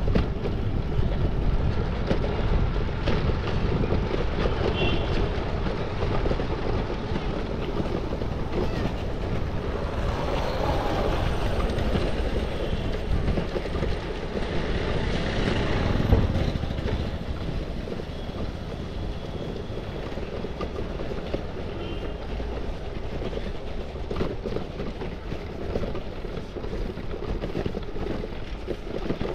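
Tyres of a Scott eRide e-bike rolling over interlocking brick paving, giving a steady rattling rumble, with wind noise on the handlebar microphone.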